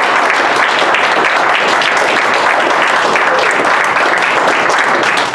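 Small congregation applauding, dense steady clapping.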